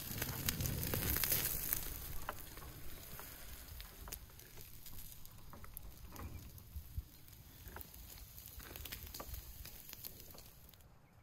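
Khan kebab (chopped lamb liver and lungs wrapped in lamb stomach) and skewered meat sizzling in wire grill baskets over charcoal embers, with fat crackling in scattered pops. It is loudest in the first couple of seconds, then softer.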